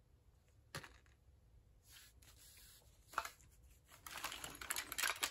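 A couple of small sharp clicks, then a clear plastic zip bag crinkling as it is handled, starting about four seconds in.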